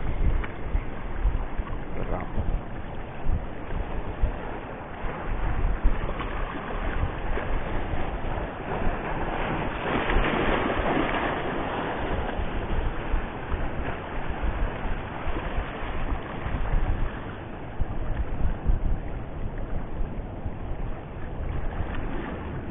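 Wind buffeting the microphone in gusts over the steady wash of sea waves, the water noise swelling to a louder rush around ten seconds in.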